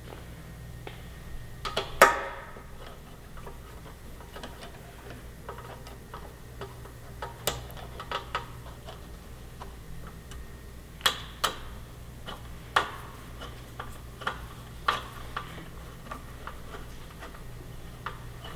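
Irregular small metallic clicks and taps of hand tools and screws as a motorcycle fuel cap base is fitted to the tank, with one sharper knock about two seconds in, over a faint steady low hum.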